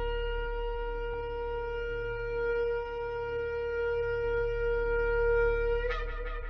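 Shofar (ram's horn) sounding one long steady blast, ending with a sudden upward break near the end.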